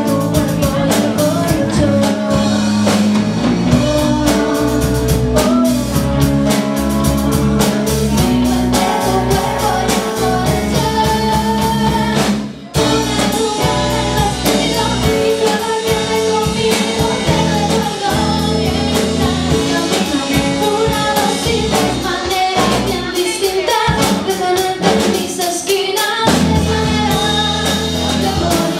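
Background music: a song with singing over a band with drums, briefly dropping out about halfway through.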